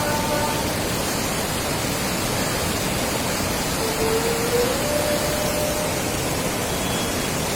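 Floodwater flowing fast, a loud, steady rush of water with no let-up.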